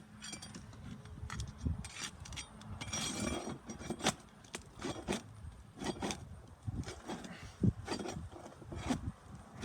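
Irregular scrapes, clicks and knocks of a hand tool being worked under asphalt roof shingles to loosen them for a repair.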